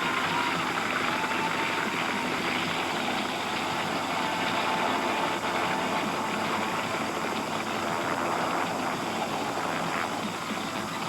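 A crane's engine running steadily as the box is lowered, with faint distant voices.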